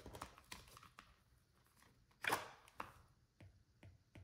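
Quiet desk handling sounds. A small ring binder's cover is closed with a brief soft slap a little over two seconds in, then come a few light taps of a stylus on a tablet's glass screen.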